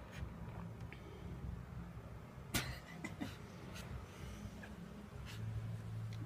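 Quiet room tone with a low steady hum and a few scattered short clicks, the sharpest about two and a half seconds in.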